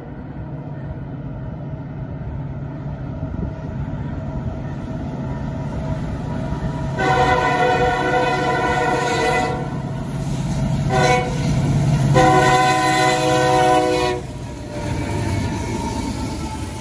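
Norfolk Southern diesel freight locomotive approaching a grade crossing, its engine rumble growing louder. Its air horn sounds a long blast, a short blast and a final long blast, the end of the long-long-short-long grade-crossing signal, and the locomotive passes close by near the end.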